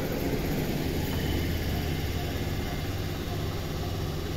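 ScotRail electric multiple unit pulling away along the platform: a steady low hum from its motors, with the rumble of its wheels on the rails.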